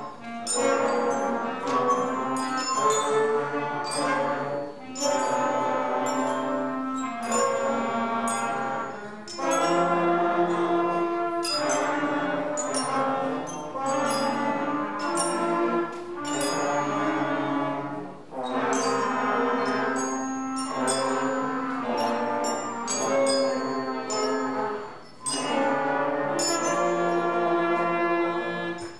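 A beginner school band of clarinets, brass and bells playing a simple tune in short phrases, with brief breaks for breath between them.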